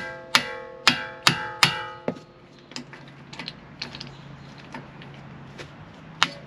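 Small sledgehammer striking a manual impact screwdriver seated in a brake rotor retaining screw: a quick run of about six ringing metal-on-metal blows, then lighter taps, then another hard blow near the end. The blows are driving the screwdriver to break loose a tight rotor screw.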